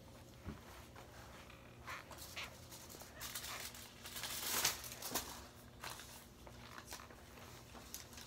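Faint scuffing and rustling of suede Adidas Gazelle sneakers rubbing against each other as a crossed leg shifts, with a few light knocks. The loudest swish comes about halfway through.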